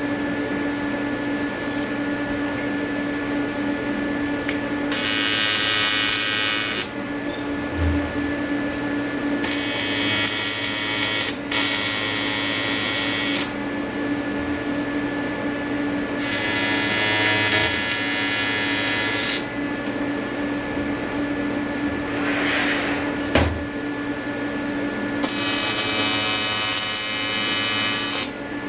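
AC TIG welding arc on aluminium from an Everlast 325EXT set to square wave: five bursts of buzzing, each lasting two to three seconds, as the torch is struck and stopped. A steady hum from the welder carries on between the bursts.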